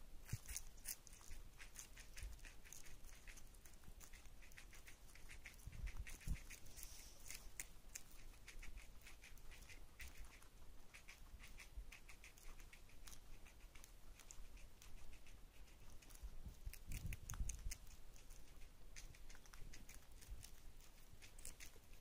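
A guinea pig and a budgie eating lettuce: faint, quick, crisp crunching and nibbling clicks, with a couple of soft low bumps about six and seventeen seconds in.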